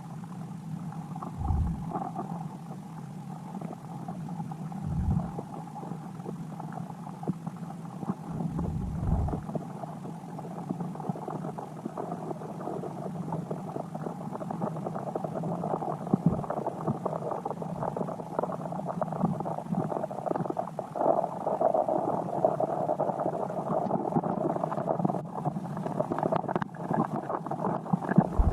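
Steady, muffled water noise, with a few brief low thumps in the first ten seconds.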